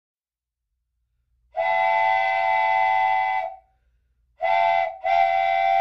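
Toy train set's electronic train-horn sound effect: a steady chord of several tones, sounded as one long blast of about two seconds, then a short blast and a longer one.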